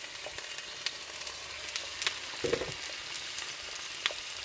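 Potato slices frying in hot oil in a pan: a steady sizzling hiss with scattered crackles.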